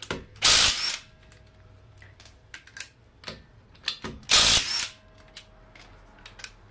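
Ryobi 3-speed cordless impact wrench spinning off spline lug nuts in two short bursts of about half a second, roughly four seconds apart, with light clicks in between.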